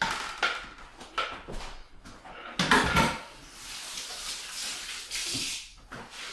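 Kitchen handling sounds: a knife and a blender container knocking and clinking against a cake pan, with the loudest knock about three seconds in. A stretch of scraping hiss follows.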